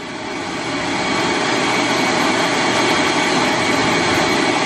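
Electric vacuum running steadily off a battery through a power inverter. Its level rises a little over the first second and then holds even.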